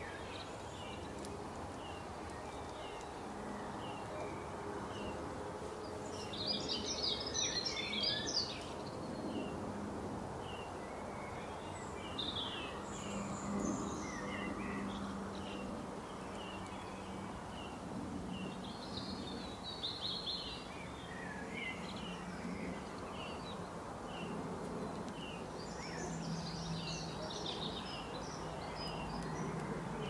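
Small birds chirping steadily, with bursts of fuller song four times, over a faint steady low hum of background noise.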